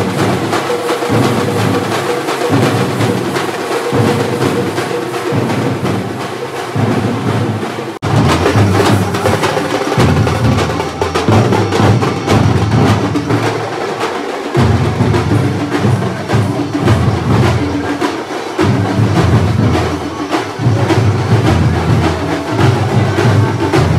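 Festival procession drumming: a group of drums beaten with sticks in a fast, driving rhythm. The sound drops out for an instant about eight seconds in, then the drumming carries on.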